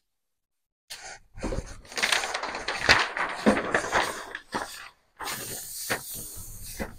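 A large sheet of paper rustling as it is handled and laid over a gel printing plate, starting about a second in. After a short pause, a steadier hiss of hands rubbing across the paper to press it onto the inked plate.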